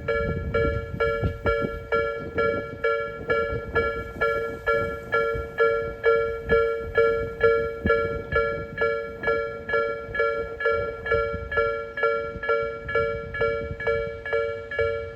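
Japanese level-crossing alarm dinging steadily, about two strikes a second, in its electronic bell tone, with the low rumble of a Tokyo Metro 10000 series train passing over the crossing underneath, heaviest in the first few seconds.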